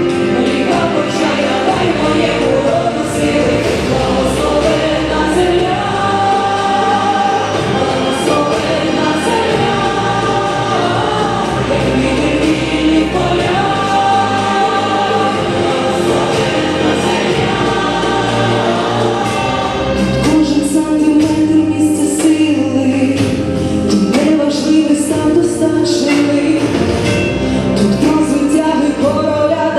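A song sung over instrumental accompaniment with a full, choir-like blend of voices and a steady beat. It grows a little louder and fuller about two-thirds of the way in.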